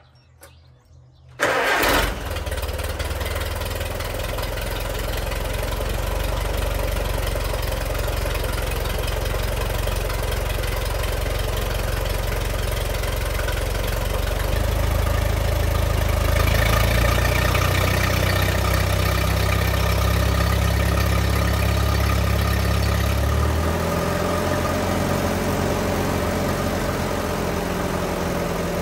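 1954 Allis-Chalmers WD45 tractor's four-cylinder gasoline engine starting about a second and a half in and catching at once, then running steadily. Its note runs fuller and faster from about halfway through, then drops back to a slower idle about five seconds before the end.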